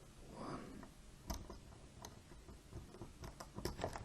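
Faint, scattered metallic clicks and light scraping of a flat dimple pick and tension tool working inside a small Burg Wächter Boccia 450/30 dimple padlock, probing the pins one by one under heavy tension.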